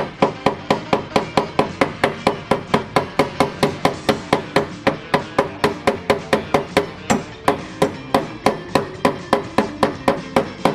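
Hammer rapidly tapping a car door's thin sheet metal against a brass block used as a dolly, about four strikes a second with a short metallic ring to each. The pulled-out metal around a stripped screw hole is being knocked back flat so a screw will bite again.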